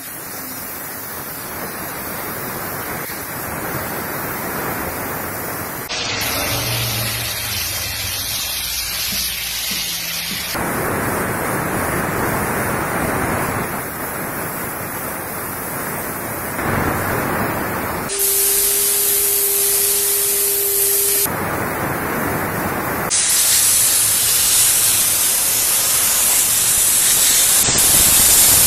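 A steam cleaner's nozzle hissing as it jets dry steam, the hiss changing abruptly in character several times. A steady hum joins for about three seconds past the middle.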